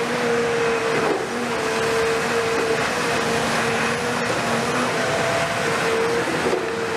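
Cat 340F UHD demolition excavator working, its Cat C9.3 diesel engine and hydraulics running with a steady whine, over the noise of concrete and masonry crumbling and falling as the attachment breaks into the upper floors of a building.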